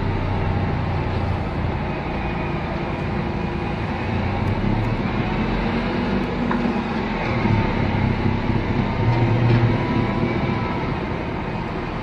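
A tractor-mounted snowblower and the dump truck beside it running with a steady engine rumble as snow is blown into the truck, swelling a little in the second half.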